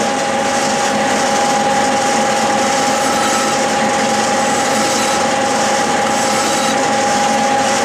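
Metal lathe running at speed with a steady two-tone whine, while a flat hand file is worked against the spinning workpiece.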